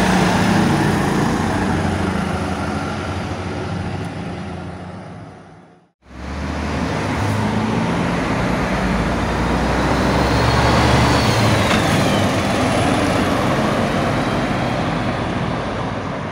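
Road traffic passing close by: a UPS box van's engine goes past and fades out, then after a sudden cut about six seconds in, a MAN flatbed truck with a loader crane comes up and passes among cars, its diesel engine and tyre noise loudest around the middle.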